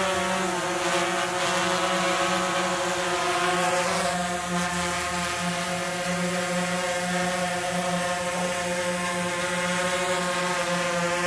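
Quadcopter drone's propellers buzzing in a steady hum as it hovers overhead.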